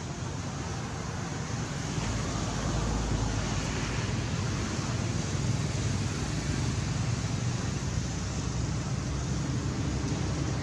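Steady outdoor background noise: an even low rumble with hiss, slightly louder from about two seconds in.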